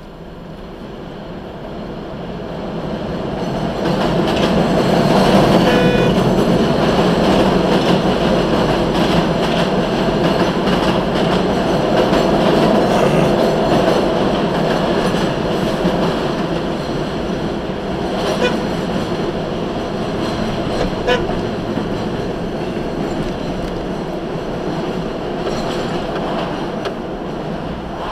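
Elevated subway train running on the steel el structure overhead, heard from inside a vehicle's cab. A loud, dense rumble swells over the first few seconds, holds, then slowly fades, with a brief high wheel squeal about six seconds in.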